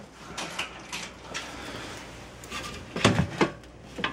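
Handling noise from a metal ammo box: a few light knocks and rubs, with a louder clunk about three seconds in.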